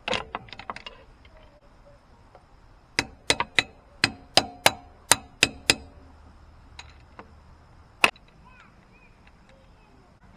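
Metal banging on a backhoe's seized wheel drive hub, struck to break it free from its free-wheel position. A clatter at the start, then a run of about nine ringing blows in under three seconds, then one more sharp blow a couple of seconds later.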